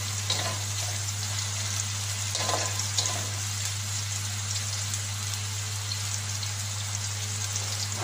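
Minced onion sizzling steadily in hot oil in a wok, being sautéed until translucent, with a few light scrapes of a spatula stirring it. A steady low hum runs underneath.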